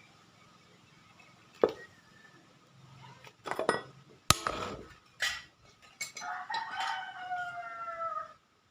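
Several sharp knocks and clinks, then one long crowing call, about two seconds, that slowly falls in pitch before cutting off.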